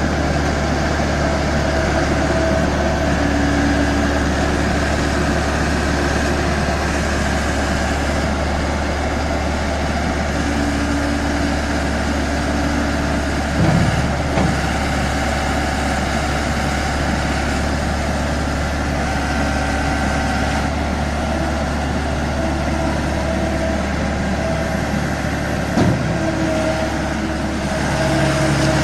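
Skid steer loader engine running steadily with a low hum, and two short knocks, one about halfway through and one near the end.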